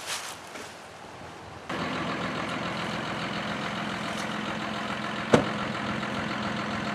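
Shed-delivery vehicle's engine running steadily at idle, cutting in abruptly about a quarter of the way in, with one sharp knock a little later.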